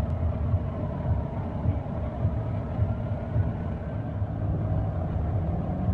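Pierce fire engine's diesel engine idling with a steady low rumble.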